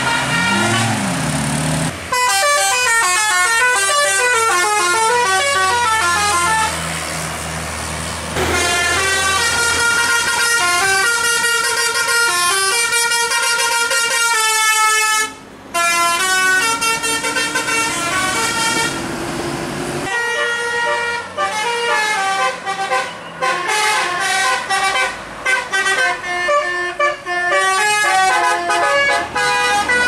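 Tour buses' multi-tone telolet basuri horns playing fast melodic runs of notes, one tune after another, over diesel engine noise. The horns start about two seconds in and break off briefly about halfway through.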